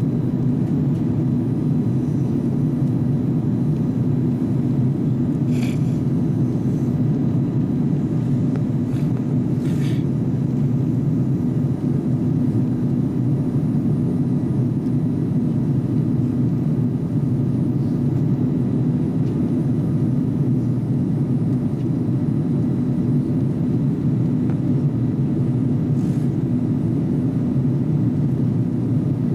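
Steady low rumble inside a jet airliner's cabin during its descent: engine and airflow noise heard from a window seat over the wing. A few faint, brief clicks about six, ten and twenty-six seconds in.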